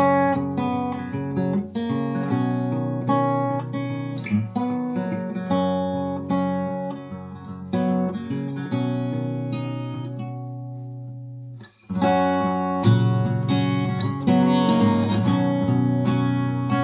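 Background music: acoustic guitar picking and strumming, which fades, breaks off for a moment about twelve seconds in, then starts up again.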